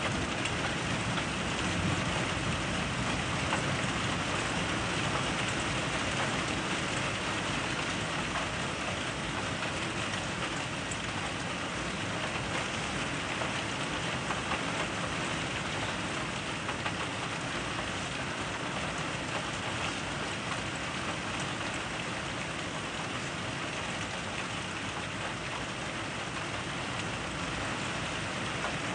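Steady rain falling during a thunderstorm, heard through a window.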